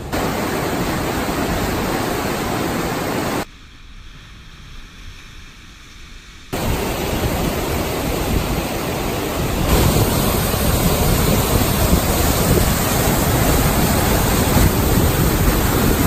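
Whitewater of the Temperance River rushing through a rock canyon at high snowmelt flow, a steady rush of water. It drops to a quieter rush for about three seconds starting about three and a half seconds in, and grows louder about ten seconds in.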